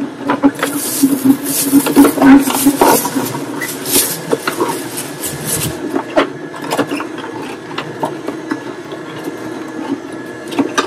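Electric slow juicer running: a steady motor hum with dense crackling and crunching as chopped pieces are pressed. The crunching thins out after about six seconds.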